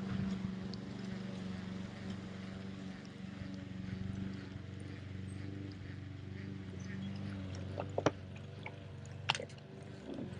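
Boat motor running with a steady low hum, with two sharp knocks about eight and nine seconds in.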